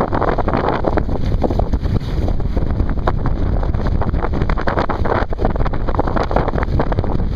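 Wind buffeting the microphone of a sailing canoe under way in a stiff breeze, with water rushing and slapping along the hull. The noise is loud and steady, broken by many short splashes and gusts.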